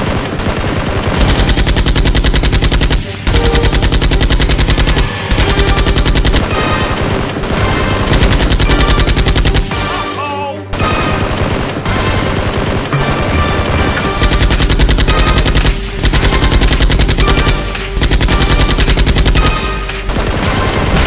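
Rapid automatic gunfire sound effect, dubbed over toy blasters: long bursts of machine-gun fire broken by brief pauses, the longest about ten seconds in.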